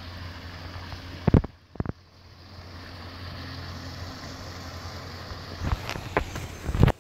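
Handling noise on a handheld camera's microphone: a steady low rumble, broken by loud bumps, two about a second in and three more near the end.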